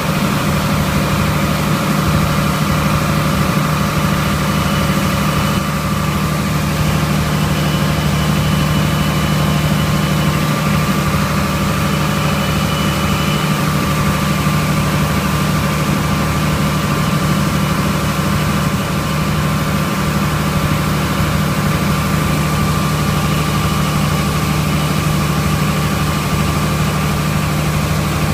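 IH 686 Turbo tractor's diesel engine running steadily under load, driving the IH 82 pull-type combine's machinery and its unloading auger as oats pour into the grain cart. The drone holds steady throughout, with a faint steady whine above it.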